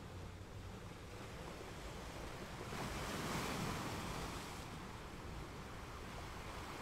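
Steady rush of wind and sea surf on an open beach, swelling briefly about three seconds in.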